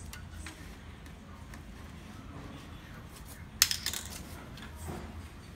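Small clicks of a screwdriver and printer parts being handled, then one sharp clack with a brief rattle about three and a half seconds in, as the plastic scanner top of an HP LaserJet M135a printer is freed and lifted.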